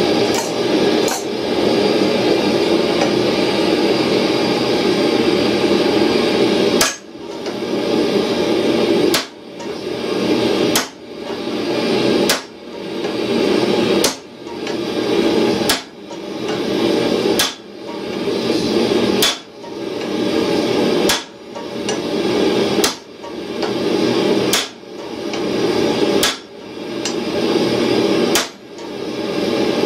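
Hand hammer striking a steel punch held on a red-hot steel block on an anvil. There are a couple of light taps at the start, then from about seven seconds in a sharp metallic blow comes roughly every two seconds. A steady rushing noise runs underneath throughout.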